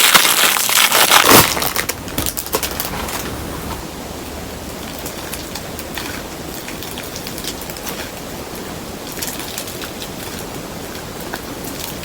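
Glue slime being squished and kneaded by hand, a dense wet crackling and popping. It is loudest for the first two seconds, then settles into a quieter steady crackle with small clicks.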